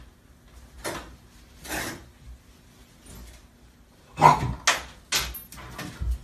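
Puppy's claws scrabbling and scraping against the side of a bathtub as it struggles to climb in: a few short scrapes, then a louder, quicker flurry of scrapes and bumps about four seconds in.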